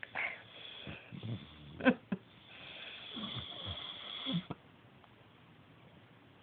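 A sleeping pet snoring and snuffling in a few irregular breaths, the loudest a short sharp snort about two seconds in, then quiet for the last couple of seconds.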